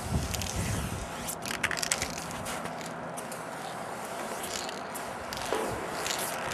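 Aerosol spray-paint can hissing as a graffiti outline is sprayed, with a few sharp clicks and crunches about one to two seconds in.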